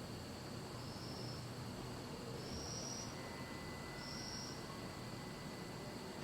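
Steady background hiss with three short, high chirps about a second and a half apart, and a faint thin tone coming in about halfway through.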